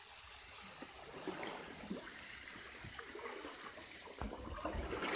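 Water trickling and splattering down a stone wall onto the water's surface, a steady hiss, with a few low knocks about four seconds in.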